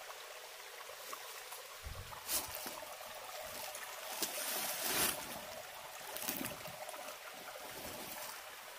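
Rustling and crackling in dry leaf litter and brush, with louder bursts about two and a half seconds in and again around four to five seconds in.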